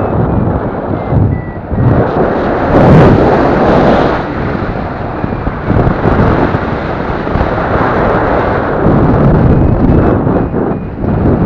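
Rushing wind over the microphone of a riser-mounted camera on a paraglider in flight, loud and gusting up and down. A paragliding variometer beeps faintly through it, clearest near the end.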